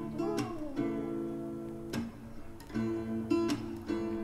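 Background music: a pop song with acoustic guitar chords, in a gap between the sung lines.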